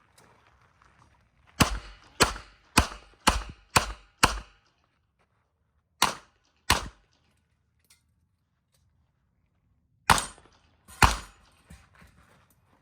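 Smith & Wesson 929 9mm revolver firing fast: six shots about half a second apart, two more shortly after, then, after a pause of about three seconds, two final shots.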